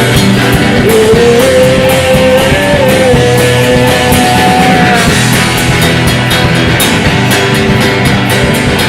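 Rock band playing a song with electric guitar, bass and drums, with no lyrics sung; a held lead note bends up and down in pitch through the first five seconds.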